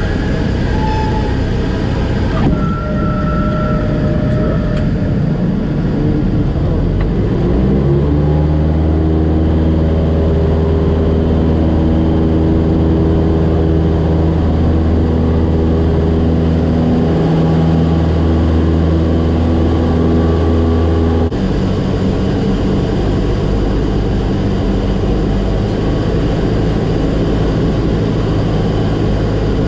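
Single-engine propeller airplane's engine and propeller, running at lower power at first, then rising to full takeoff power about eight seconds in and holding steady through the takeoff roll and climb-out. The tone shifts abruptly about two-thirds of the way through.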